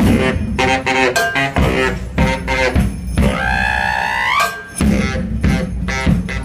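Baritone saxophone playing a rhythmic riff over a live drum beat, with one long held note that slides upward about three to four seconds in.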